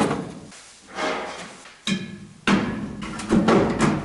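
A series of knocks and clattering, as of tools or parts being handled.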